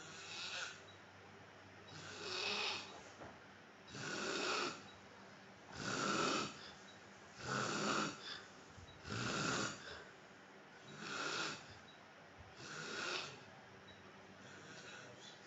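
A man snoring, one snore about every two seconds, nine in all, the last one fainter.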